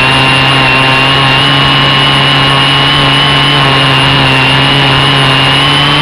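Quadcopter's electric motors and propellers running steadily in flight: a loud whirring hum with a high whine that wavers slightly in pitch.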